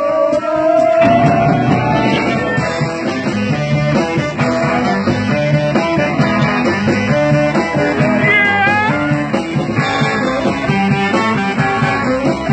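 Live blues band playing: guitar, bass and drums, with a lead line sliding up in pitch near the start and high bent notes about two-thirds of the way through.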